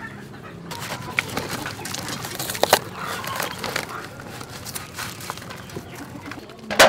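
Hands tearing jackfruit bulbs and fibrous strands away from the fruit's core: a crackly rustling full of small snaps, with a sharper snap a little under three seconds in and the loudest one near the end.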